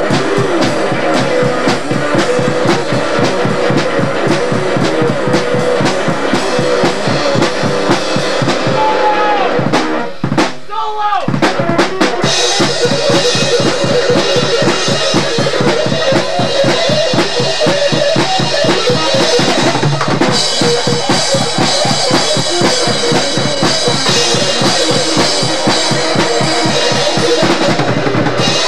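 Loud live jam of a drum kit and guitar, the drums played in a fast, busy rhythm under a wandering guitar line. About ten seconds in the playing breaks off for a moment with a few scattered hits, then the band comes back in fuller and brighter.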